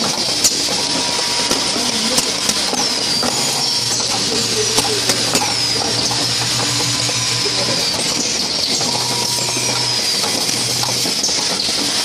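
An automated assembly line running: a steady machine hiss and drone with sharp clicks, and short high squeaks that fall in pitch about every second or so. A low hum starts about a third of the way in and cuts in and out.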